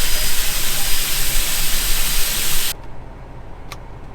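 Loud steady rushing hiss that cuts off suddenly about three seconds in, leaving a truck engine idling low with a few faint clicks.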